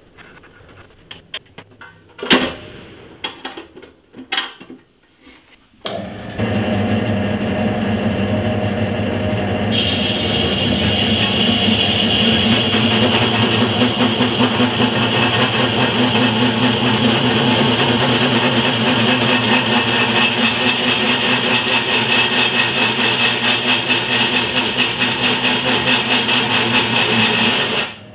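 A few clicks and knocks from handling the drill press's belt cover and pulleys. About six seconds in, the 550 W HBM 16 bench drill press starts running at 300 rpm. From about ten seconds its 30 mm high-speed-steel hole saw is cutting into steel square tube, adding a steady high cutting whine over the motor, until it stops suddenly near the end.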